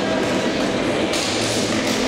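Echoing sports-hall din: a steady murmur of many voices, with light taps as the players touch hands in the handshake line. A brief rush of higher hiss comes about halfway through.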